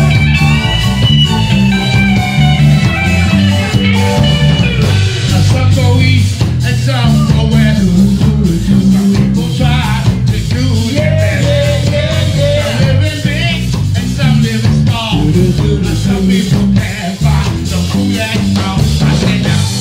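A live reggae band playing: a strong stepping bass line under electric guitar, keyboard and drums with regular cymbal and drum hits.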